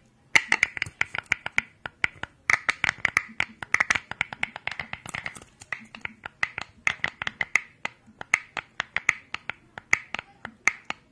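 Close-miked ASMR clicking: quick runs of crisp clicks, several a second, broken by brief pauses.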